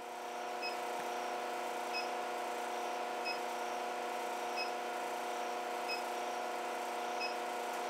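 LH-15a induction heater running under load while heating steel tong jaws in a 1.5-inch copper coil: a steady multi-tone hum, with a short high chirp about every 1.3 seconds, that fades near the end as the heat finishes.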